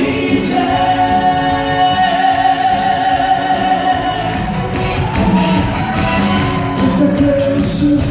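Live band music with singing, one long held note through the first half.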